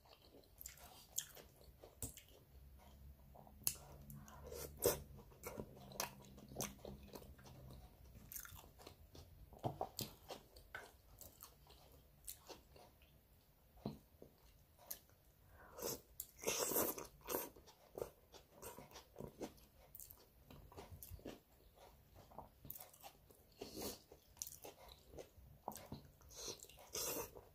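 Close-miked eating: a person biting, crunching and chewing food in irregular small clicks and wet smacks, busiest about sixteen to seventeen seconds in.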